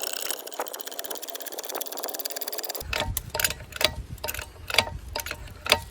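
A ratcheting mechanism in a homemade propeller-hub press clicking rapidly and evenly, then, about three seconds in, a slower, irregular series of sharp metallic clicks and knocks as the rig is worked under load.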